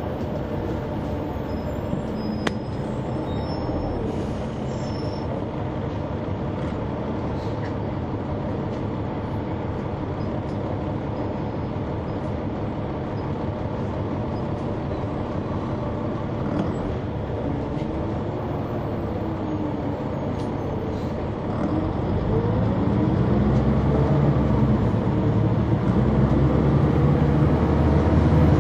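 Caterpillar C-9 ACERT inline-six diesel of a 2004 Neoplan AN459 articulated bus running steadily, heard from inside the bus. About three-quarters of the way through the engine revs up and grows louder, with rising pitch, as the bus accelerates.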